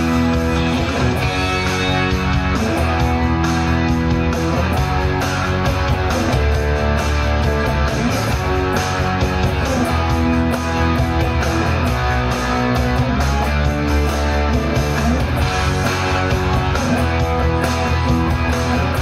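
Electric guitar playing chords in a steady rock rhythm, with a strong deep low end running underneath.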